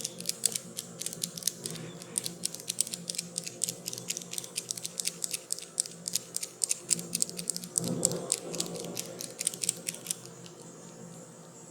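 A fast run of crisp, high clicks, several a second, that stops abruptly about ten seconds in, with a brief soft rustle about eight seconds in.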